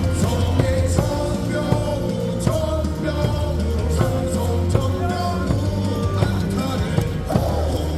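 Stadium cheer music: an up-tempo rock song with a steady beat and singing.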